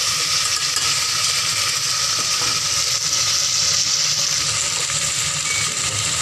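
Sea cucumber pieces sizzling in hot oil in a stainless steel pot, stirred with a metal ladle: a steady frying hiss.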